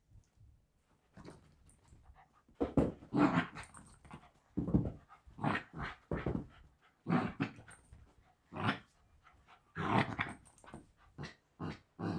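Mini Australian Shepherd growling in repeated short bursts while playing tug-of-war.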